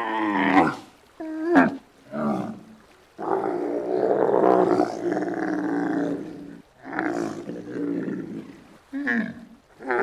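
Giraffe calling: a series of short pitched calls, then one long call of about three and a half seconds in the middle, then more short calls.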